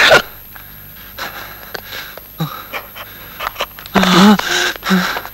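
A person breathing hard in short, ragged breaths, with a louder voiced gasp about four seconds in.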